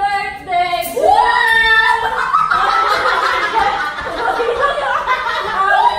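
A confetti popper goes off with a short pop about a second in, then high-pitched shrieks and laughter follow.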